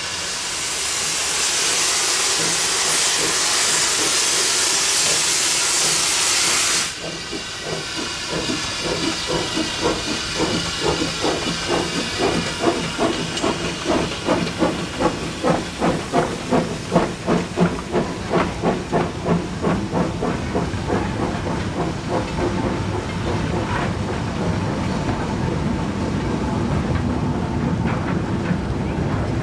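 Two small steam tank engines pulling a goods train away. A loud hiss of escaping steam cuts off suddenly about seven seconds in. Then the exhaust beats start, about two a second, and after a while they give way to the steady rumble of the wagons rolling past.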